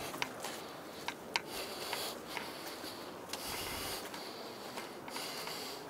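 Footsteps scuffing and crunching on a snowy stone path: irregular small clicks and scrapes over a steady background hiss.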